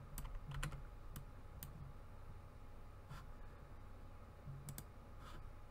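Scattered sharp clicks from a computer input device on a desk, some in quick pairs, over a low steady hum.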